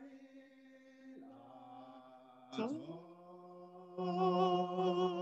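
A man's voice chanting a slow liturgical melody in a few long held notes. It slides up into a final sustained note that swells louder about four seconds in, with a slight vibrato.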